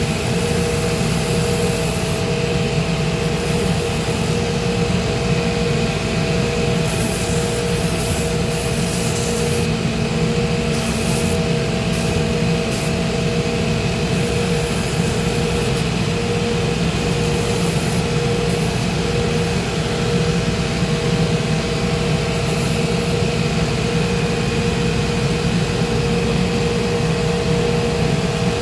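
Shoe-repair finishing machine running with a steady motor hum, while a sanding or trimming wheel grinds the layered crepe lift on and off with a rough hiss.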